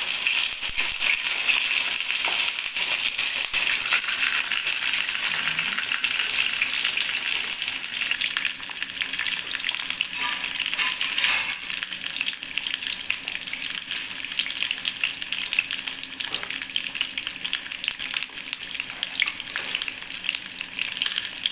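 Salmon fillets shallow-frying in hot oil in a frying pan: a steady, dense sizzle and crackle.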